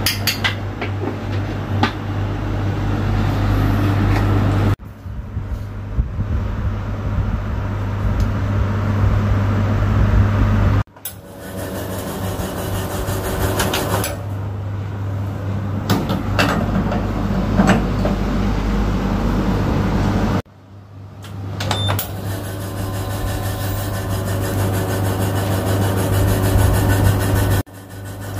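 Commercial espresso machine running with a steady low hum, with scattered clicks and knocks from handling the portafilter and cups; it pulls a shot, espresso pouring into the cup. The sound breaks off abruptly several times.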